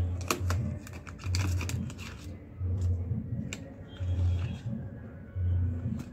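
Cardboard box and plastic packaging handled in clicks and crinkles as a puzzle cube is pulled out, over background music with a deep beat about every second and a half.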